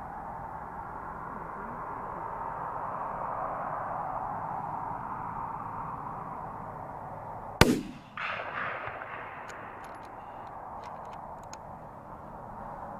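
A single hunting rifle shot about seven and a half seconds in, followed by its echo dying away over about a second, over a steady background hiss. It is the shot that drops a mule deer buck.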